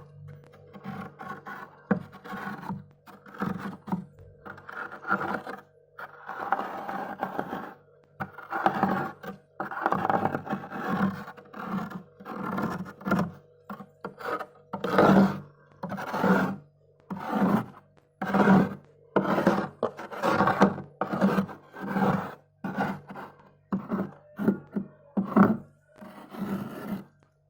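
A bowl scraping built-up frost off the inside of a freezer in repeated strokes, about one a second, over a steady low hum.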